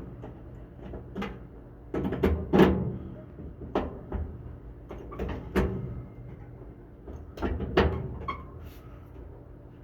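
Hand pop-rivet gun being worked to set rivets: a run of irregular sharp clicks and knocks, several in quick clusters, with the loudest near the middle.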